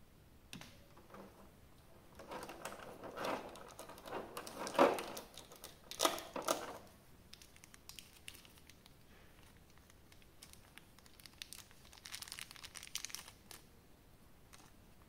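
Packaging crinkling and crackling as it is handled and unwrapped, in two spells: a longer, louder one with sharp crackles starting about two seconds in, and a shorter, quieter one near the end.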